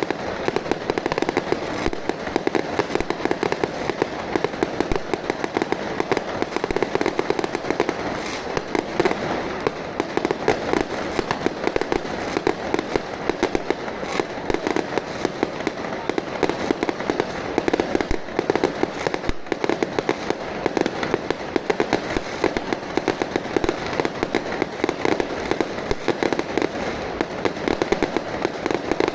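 Strings of firecrackers going off in a dense, unbroken rattle of rapid pops that never lets up.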